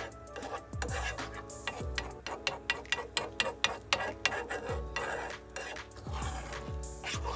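A metal utensil stirring and scraping eggs in a nonstick frying pan, with a quick run of taps and scrapes against the pan through the middle. Background music with a steady beat plays throughout.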